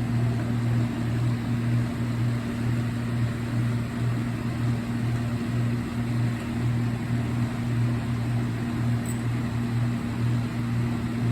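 Steady low machine hum with a constant rushing noise underneath, unchanging throughout.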